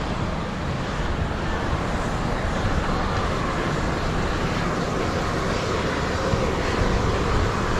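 Steam and volcanic gas rushing steadily out of a fumarole vent, like an air blower.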